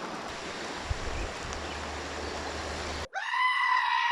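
Steady wash of rain and river noise. About three seconds in it cuts off abruptly, and a long, high, goat-like bleat takes over and holds steady.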